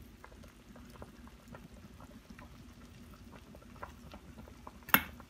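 Soup broth boiling in an Instant Pot, a steady bubbling with many small pops. One sharp knock sounds near the end.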